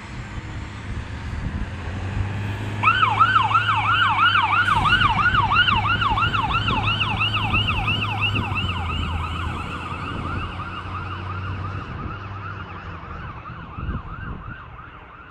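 Fire engine siren on a fast yelp, its pitch rising and falling about three times a second, with the truck's engine running underneath as it drives past. The siren starts about three seconds in and fades toward the end.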